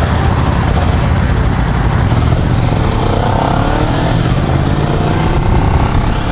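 Honda CBR250RR motorcycle engine running as the bike rides, under heavy wind noise on the microphone. About three seconds in, the engine pitch rises as the bike accelerates.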